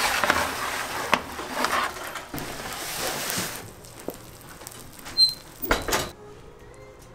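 Metal baking tray of dough-filled cups scraping as it slides along a deck oven's deck, then a few sharp metallic knocks of the baking cups near the end.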